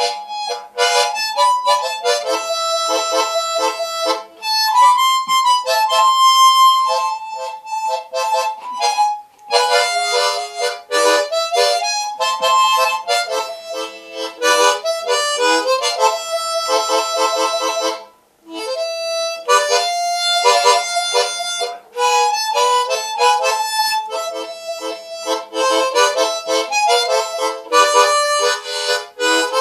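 Harmonica played solo: a melody with several notes sounding together, in phrases broken by short pauses, the longest a brief gap a little past the middle.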